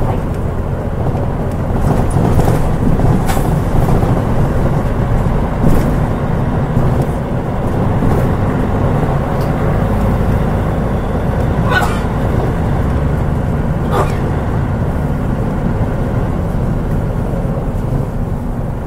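Mitsubishi Fuso Aero Star KL-MP37JK city bus under way, its turbocharged 6M70 diesel engine running with a steady drone and road noise that grows louder about two seconds in. A few short clicks or rattles cut through, two sharper ones about two thirds of the way through.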